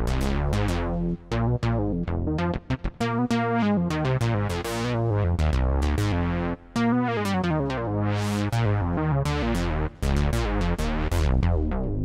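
Sequential Prophet 6 analog synthesizer playing a resonant bass patch ("Reso Bass 2"): a rhythmic bass line in which each note starts bright and closes down quickly. The line is broken by a few short gaps.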